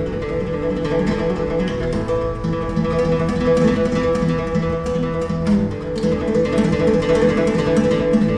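Solo flamenco guitar playing por soleá: a steady stream of plucked notes and chords ringing over one another.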